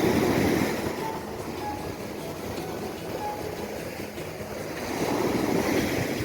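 Sea waves washing onto a sandy beach, with wind on the microphone; the surf swells up at the start and again about five seconds in.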